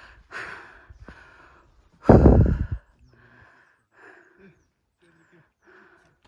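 A person breathing and sighing close to the microphone in short puffs. The loudest breath, about two seconds in, buffets the mic with a rumble, and fainter breaths follow.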